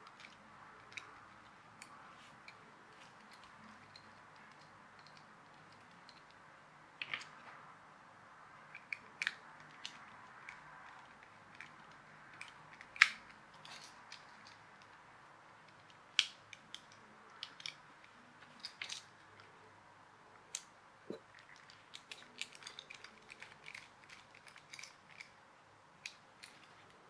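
Hands handling the small plastic chassis of a Nikko RC Mini Cooper toy car, its parts and wheels giving scattered light clicks and taps, the sharpest about halfway through.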